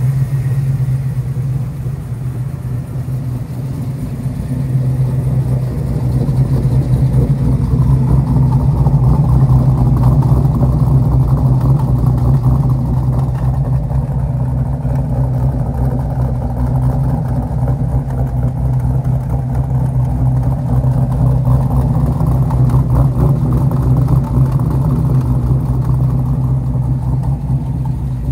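Chevrolet LS3 6.2-litre V8 in a 1961 Corvette running at a steady idle, warming up after a cold start.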